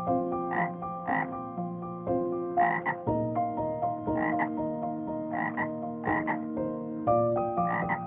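A frog croaking in short calls, mostly in quick pairs, repeating every second or so, over background music with long held notes.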